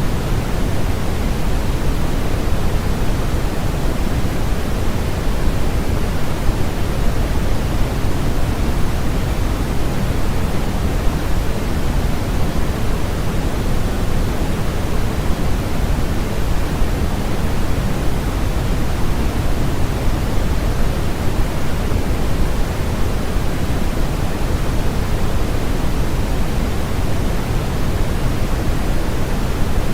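Steady, unchanging synthesized noise, as used for sleep. It is heavier in the lows than the highs, closer to pink noise than flat white noise.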